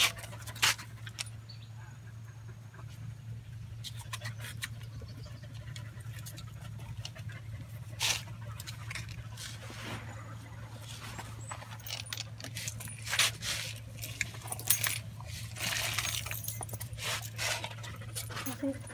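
Thai Ridgeback dogs rummaging under a cinder-block stand while hunting lizards: irregular scuffling, rustling and small clinks, busier in the second half, over a steady low hum.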